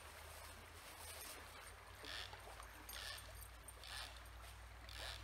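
Faint, steady flow of a river. From about two seconds in, a short faint sound repeats about once a second above it.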